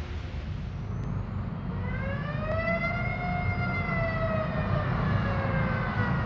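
Air-raid siren starting about two seconds in, winding up to a peak and then slowly winding down, over a steady low rumble.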